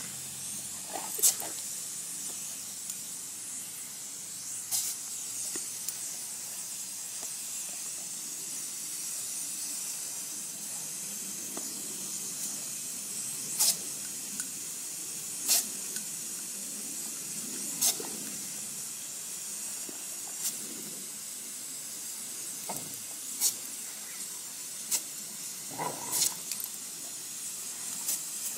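Garden hose spray nozzle jetting water with a steady hiss, broken every few seconds by sharp clicks.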